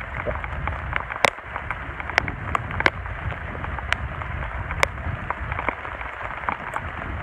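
Hands handling lotus leaves and wet mud over a dug hole: a steady hiss and low rumble, broken by scattered sharp crackles and clicks.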